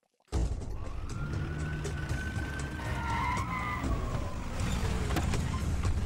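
Police jeeps' engines running with a low steady rumble, starting suddenly a fraction of a second in. Over it a siren gives one slow wail that rises and then falls.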